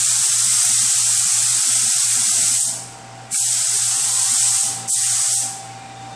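Automotive paint spray gun hissing steadily as it sprays clear coat. The spray cuts off about two and a half seconds in, starts again half a second later, and then comes in two more short passes before it stops shortly before the end.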